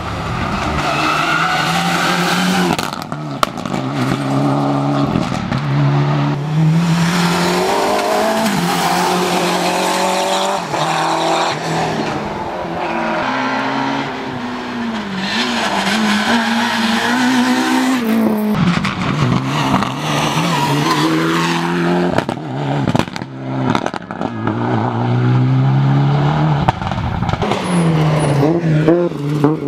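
Rally cars at racing speed on a special stage, engines revving hard, the pitch climbing and dropping repeatedly through fast gear changes as they brake and accelerate through the bends.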